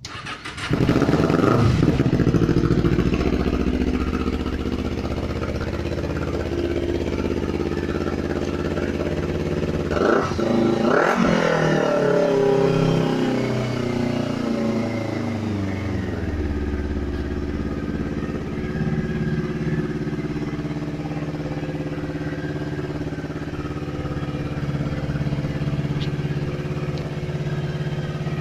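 Kawasaki Ninja 250R parallel-twin motorcycle engine with an aftermarket sport exhaust starting up, catching within about a second and running fast at first. It is revved twice about ten seconds in, then settles into a steady idle.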